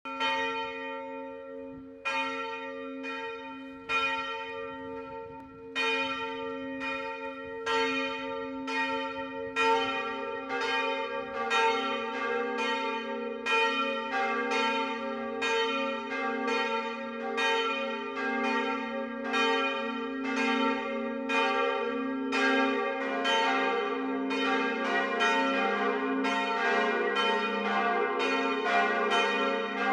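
Swinging steel church bells ringing up for a full peal. A single bell starts with slow, widely spaced strokes that come faster as it swings higher. Another bell joins about ten seconds in, and a lower-pitched bell joins about twenty-three seconds in.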